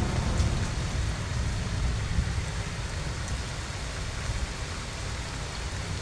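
Heavy rain pouring down, a steady hiss of rain on surfaces with a low rumble beneath it.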